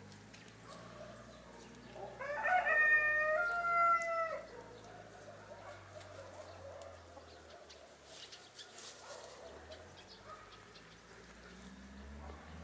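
An Australorp rooster crows once, about two seconds in. The crow lasts about two and a half seconds, climbing in steps at the start and then holding its pitch.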